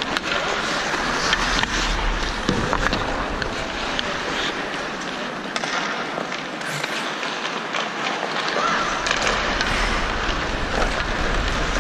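Ice hockey skates scraping and carving on the ice, with scattered clacks of sticks and puck.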